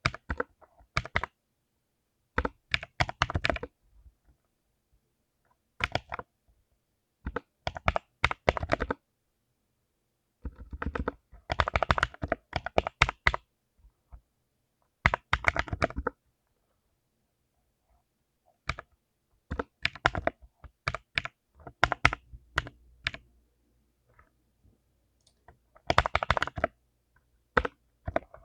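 Full-size mechanical keyboard with lubed Butter Crunch blue clicky switches being typed on in quick bursts of keystrokes, each burst a second or two long, with short silent pauses between them.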